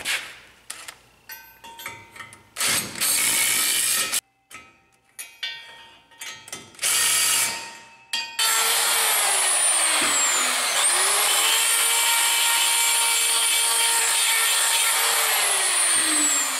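Cordless drill run in a series of short bursts, with clicking, as it drives into a steel hub tube. Then a corded die grinder: its high whine winds down, starts up again and runs steadily for several seconds, then spins down near the end.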